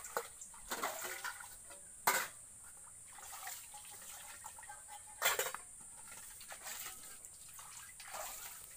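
Water splashing and sloshing as steel dishes are washed in a cement water tank, in several separate splashes and clatters, the loudest about two seconds in and about five seconds in.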